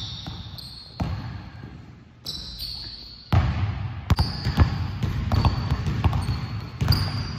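Basketballs dribbled on a gym floor with short sneaker squeaks, the bounces echoing in the hall. A few single bounces come first, then a fast, steady run of dribbling starts about three seconds in.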